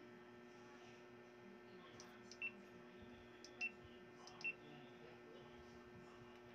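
GoPro Hero 9 action camera giving three short high beeps about a second apart, with faint clicks of its buttons, as it is set to record. A low steady hum lies underneath.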